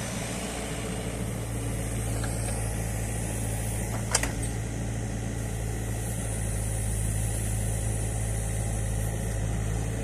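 New Holland Kobelco E50.2 mini excavator's diesel engine running steadily while the arm and bucket dig spoil out of a drainage ditch. A single sharp knock sounds about four seconds in.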